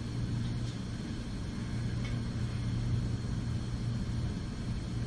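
A steady low hum with a faint even hiss over it; no distinct knocks, barks or voices stand out.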